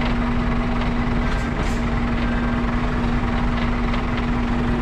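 Truck diesel engine running at low speed with a steady hum as the tractor unit creeps forward, pulling an extendable container trailer out towards its full length.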